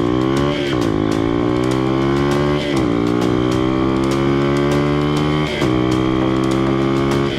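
Honda Ape 50's 50cc single-cylinder four-stroke engine pulling under load, its pitch climbing slowly and dropping sharply three times as the rider shifts up through the gears.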